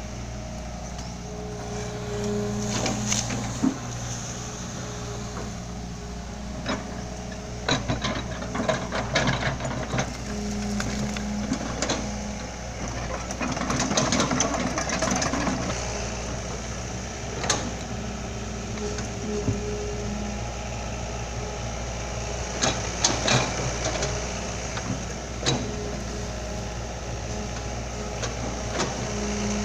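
Heavy diesel engine running steadily, with scattered knocks and clatter on top and short stretches every several seconds where it rises to a higher hum.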